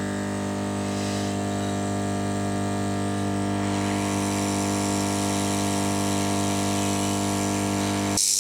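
Hot-air SMD rework station's air pump running with a steady hum, with a hiss of blown air that grows louder about halfway through as it heats an IC off a circuit board. The pump cuts off suddenly near the end.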